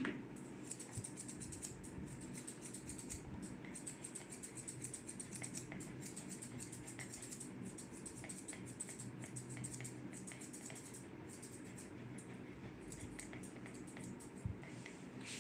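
Thinning shears snipping hair around a dog's muzzle: many quick, light clicks in uneven runs.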